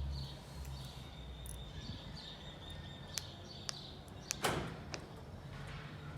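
Car's central door locks actuating with a single clunk about four and a half seconds in, after a few light clicks; no alarm chirp sounds.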